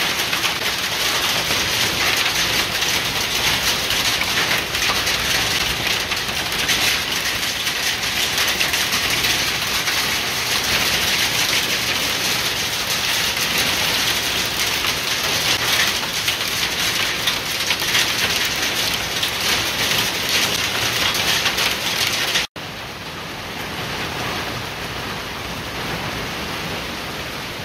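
Heavy rain pelting down in a dense crackling hiss. About 22 seconds in it cuts off abruptly, and softer, steadier rain follows.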